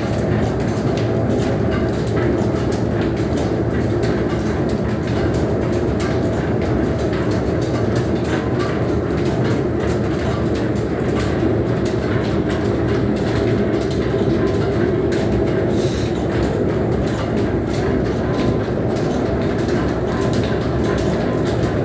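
Wanderer horizontal milling machine running off its flat belt drive: a steady mechanical running sound with a fast, continuous clatter of small clicks over it.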